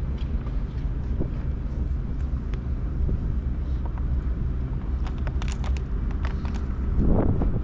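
Wind buffeting the microphone, with a steady low rumble and faint hum underneath. A run of light clicks comes about five seconds in, and a stronger gust hits near the end.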